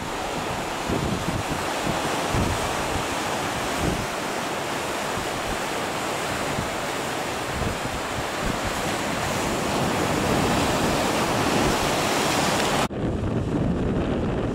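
Sea surf breaking and washing over rocks, a steady hiss of waves. About thirteen seconds in, a sudden cut leaves a duller sound, with wind buffeting the microphone.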